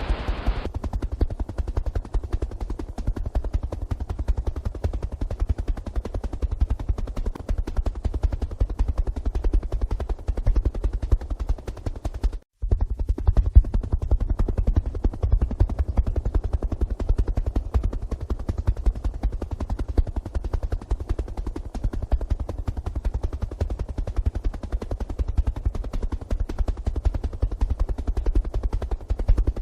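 Helicopter running with the rapid, steady beat of its rotor blades. The sound drops out for an instant about twelve seconds in.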